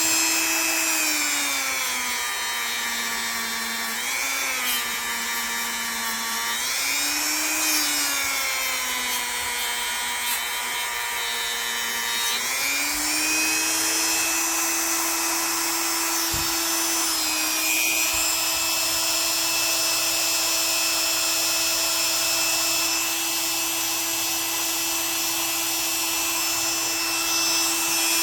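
Small electric power tool working the blade of a vintage pocket knife: a steady motor whine whose pitch sags several times in the first dozen seconds as the blade is pressed against it, then holds level for the rest.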